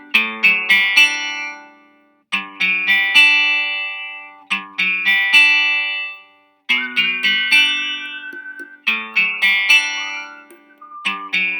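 A GarageBand ringtone playing: a soft, moody acoustic guitar loop of plucked notes in repeating phrases, each ringing and fading. About two-thirds through, a held high whistle line enters over the guitar.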